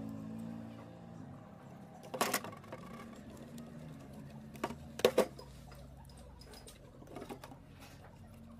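A few sharp clicks and knocks, the loudest about two seconds and five seconds in, over a steady low hum.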